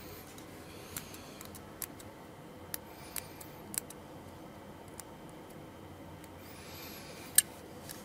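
Sharp little clicks and taps from the metal parts of a partly assembled axis lock folding knife being handled, with faint rubbing between them; there are about seven clicks, the loudest near the end.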